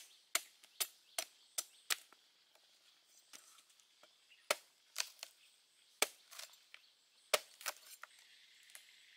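Large knife chopping into the husk of a green coconut on a wooden stump: sharp chops about two a second at first, then fewer and more spread out.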